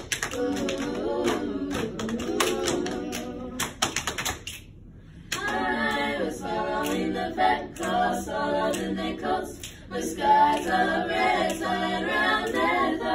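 Young women's a cappella group singing in harmony, over a rhythm of sharp clicks for the first few seconds. The voices break off briefly about four and a half seconds in, then come back in fuller multi-part harmony.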